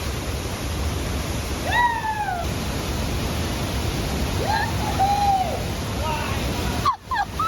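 Waterfall rushing steadily, with a few drawn-out, rising-and-falling calls over it. The sound cuts out briefly near the end.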